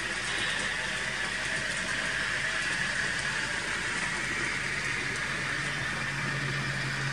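N-scale model freight train running on the layout: the small electric motors of its GEVO lead locomotive and GMD-1 helper whir steadily over the sound of wheels rolling on the track, with a low hum growing stronger in the second half as the locomotive comes past close by.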